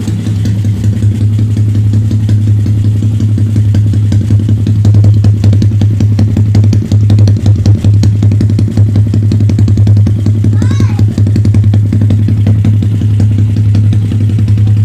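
Yamaha Sniper 135 Classic's single-cylinder four-stroke engine running loudly and steadily at a constant speed through a LeoVince open-pipe exhaust, with a dense, even pulse of firing strokes.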